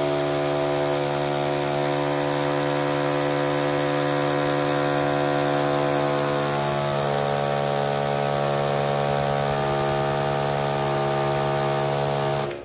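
Electric drill running at a steady motor pitch as it bores a hole into a rendered wall, then stopping suddenly at the end.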